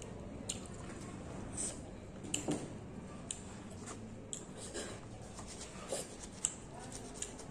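Scattered soft clicks and squishes of close-miked eating: fruit being chewed, then a thumb starting to break into an orange's peel near the end.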